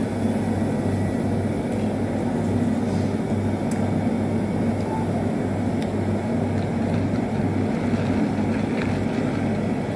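Steady low hum of the ice cream shop's machinery, an even drone with no change in level.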